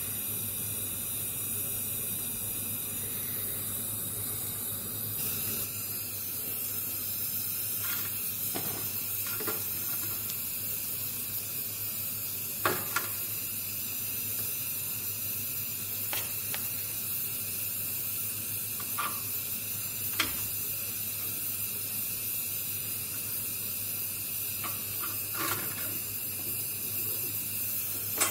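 A steady hiss with a low hum beneath it, broken by a handful of light clicks and knocks.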